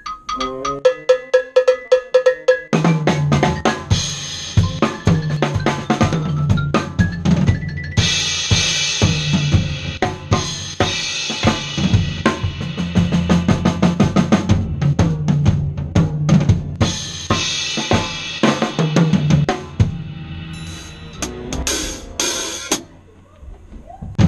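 Drum kit played with sticks in a musical-theatre pit band: snare, bass drum and cymbal strokes in a fast, busy groove over the band. The drums come in about three seconds in, after a few seconds of pitched band or keyboard notes.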